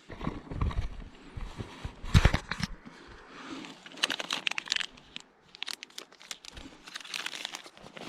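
Irregular rustling and crunching close to the microphone, with a heavier thump about two seconds in and clusters of crackles around four and seven seconds in.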